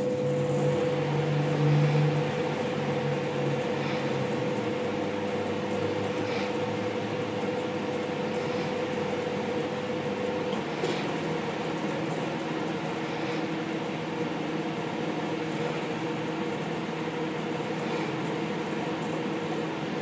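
Microwave oven running with a steady hum while cooking eggs. The hum's pitch shifts about halfway through, and there are a few faint ticks.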